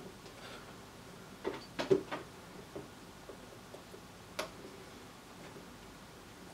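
A few light, irregular clicks and taps from work on a small circuit board held in a bench clamp during soldering, the sharpest about four and a half seconds in.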